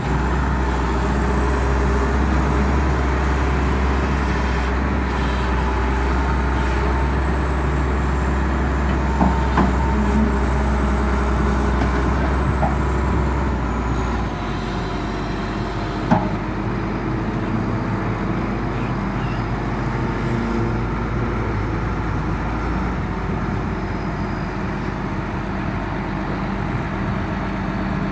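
2000 Case 721C wheel loader's diesel engine running steadily as the loader arms are worked, with a faint high whine over it. The low engine note drops about halfway through as the bucket comes down to the ground, and there are a few short metallic clanks.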